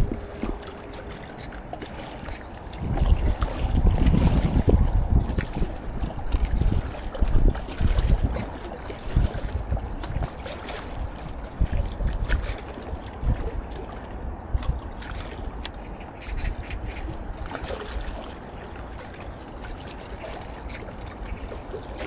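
Wind buffeting the microphone in uneven gusts, with choppy river water lapping against a concrete embankment wall.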